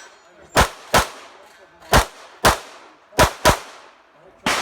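Glock 43 9mm pistol firing about seven shots in quick, uneven succession, several in close pairs, each trailing off in a short echo.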